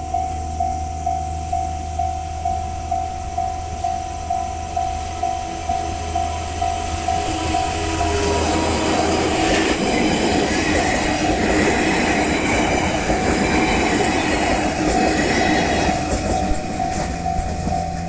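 Level crossing warning alarm ringing in a steady pulse of about two strikes a second, then a SAT721 series four-car electric train runs past close by from about eight seconds in, its noise drowning the alarm. The alarm is heard again near the end as the train moves away.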